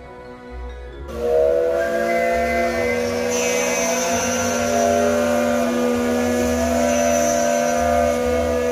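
Steam locomotive whistle blowing one long, loud blast of several steady tones together, starting suddenly about a second in, with steam hissing.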